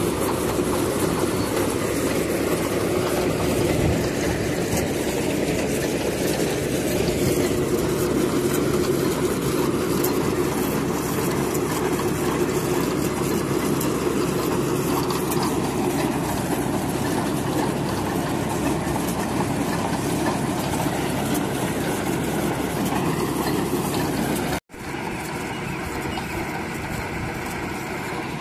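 Truck-mounted borewell drilling rig running, its engine and drilling machinery giving a steady loud drone with a constant hum. A sudden break near the end, after which the drone is a little quieter.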